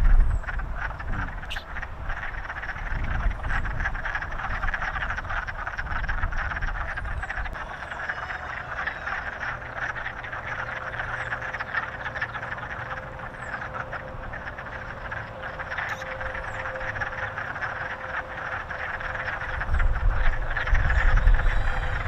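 A dense, steady chorus of frogs calling, with brief high chirps now and then. A low rumble comes in near the end.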